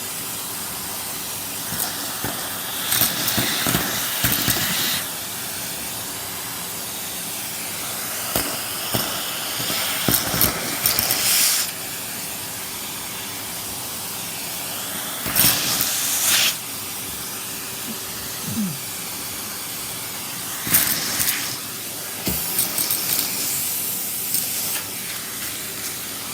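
Henry (Numatic) vacuum cleaner running steadily, with louder hissing rushes full of small clicks several times as bits of food are sucked up off the floor.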